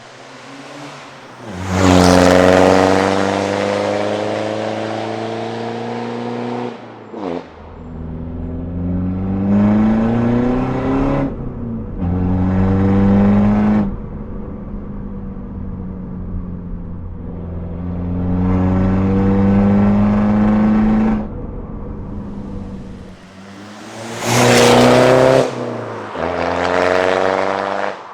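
Straight-piped BMW 320d four-cylinder turbodiesel, DPF deleted, accelerating hard in repeated pulls. The exhaust note climbs in pitch through each pull, with brief drops at the gear changes and quieter stretches where the throttle is lifted.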